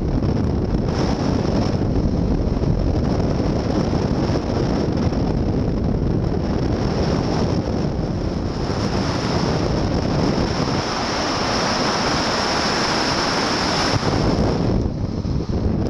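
Airflow rushing over a camcorder microphone on a hang glider in flight: a loud, steady wind rumble. A thin high tone runs underneath, and about two-thirds of the way through the low rumble eases for a few seconds while the hiss gets brighter.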